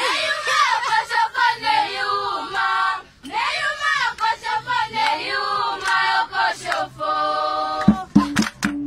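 Group of women singing together, unaccompanied, an Owambo traditional dance song, with a brief break about three seconds in. Sharp rhythmic percussive beats start again near the end.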